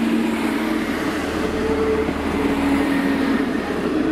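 Class 158 diesel multiple unit running past along the platform, its underfloor diesel engines droning over a steady rumble. The drone's pitch changes a couple of times as the cars go by.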